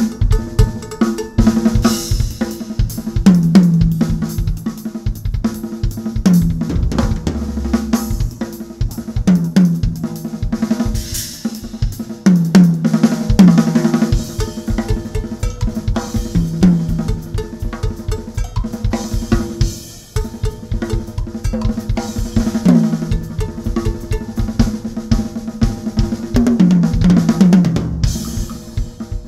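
Drum kit played in a fast, dense solo: snare, bass drum, hi-hat and cymbals struck without pause, with several quick fills around the toms.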